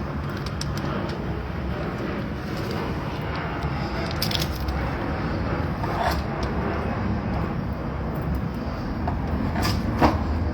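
Honeycomb being cut and pulled loose: scraping and squishing with a few sharp cracks, the loudest about ten seconds in, over a steady low rumble.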